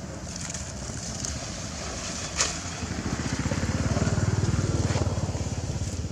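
A small engine passing, its low pulsing run swelling to its loudest about four seconds in and then easing off. One sharp click about two and a half seconds in.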